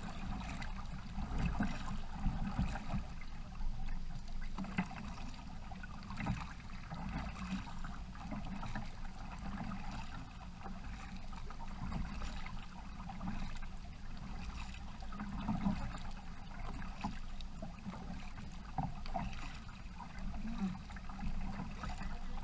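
Double-bladed paddle strokes dipping and splashing in calm river water as a sit-on-top fishing kayak is paddled along, a soft splash every second or two over a low steady rumble.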